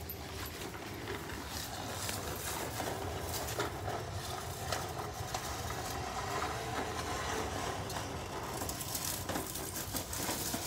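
A push lawnmower being rolled along, making a steady rolling rumble with small clicks.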